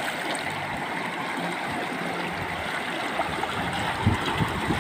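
Shallow rocky river flowing steadily over rapids, with a few low thumps near the end.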